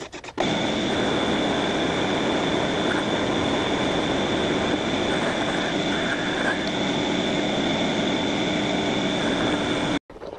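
Benchtop metal lathe running steadily with a constant high whine while a flat file is worked against the spinning shaft. The sound cuts off abruptly near the end.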